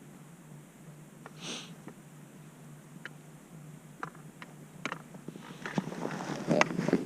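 Scattered light clicks and rattles, sparse at first and growing busier and louder near the end, over a steady low hum, with a short sniff-like hiss about a second and a half in.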